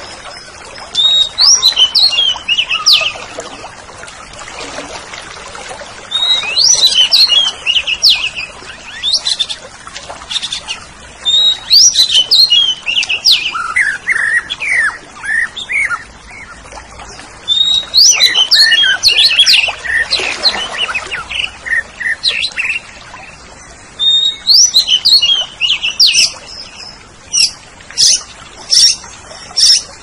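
Orange-headed thrush (anis merah) singing: five loud bursts of quick, varied whistled notes, about every five to six seconds. The last burst is the longest and ends in a string of sharp repeated notes.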